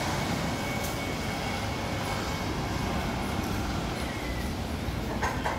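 Steady hiss of rain falling outside an open shelter, with a few light knocks near the end.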